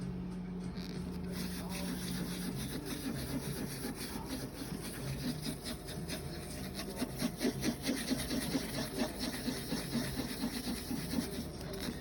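Spatula and alcohol-soaked paper towel scraping and rubbing hardened resin off a 3D printer's LCD screen, in repeated strokes that come faster and louder in the second half.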